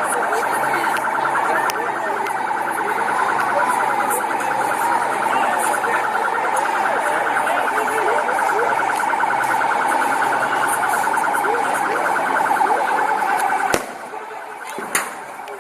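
Police siren sounding a fast, steady warble, kept on to make noise. It cuts off suddenly with a sharp crack near the end, and a short thump follows.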